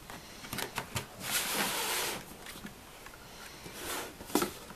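Cardboard packaging being handled: a few light taps, then about a second of scraping as a box slides out of its carton, and a sharper knock near the end.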